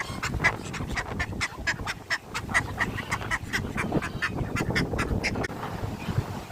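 Ducks quacking in a rapid run of short quacks, several a second, which stops about five and a half seconds in.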